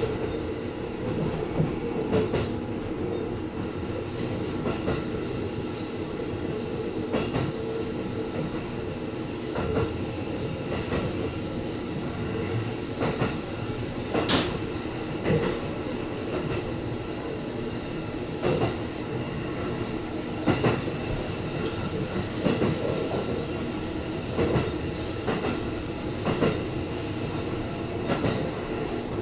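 E257 series electric train running at speed, heard from on board: a steady rumble with faint steady tones, broken every second or two by sharp, uneven clacks of the wheels over rail joints, the strongest about halfway through.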